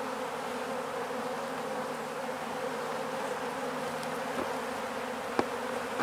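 Honey bees buzzing steadily in flight around an opened hive, a continuous even hum. They are robber bees from other colonies taking the honey from a dead colony.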